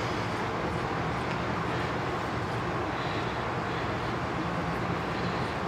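Steady background noise: an even hiss with a faint low hum, unchanging throughout, with no distinct knocks or clicks.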